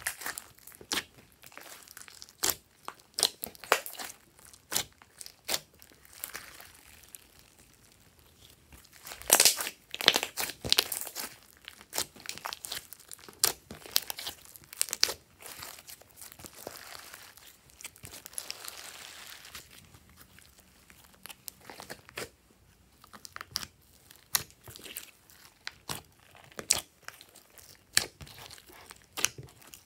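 Glossy slime squeezed, pressed and stretched by hand, making sticky squelching sounds with many irregular sharp pops and clicks.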